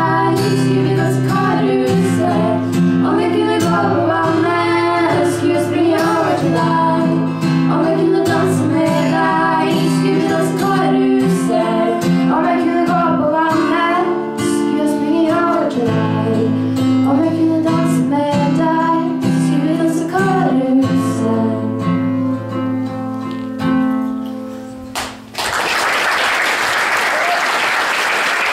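Two girls singing with a strummed acoustic guitar. About three seconds before the end, the song stops and the audience applauds.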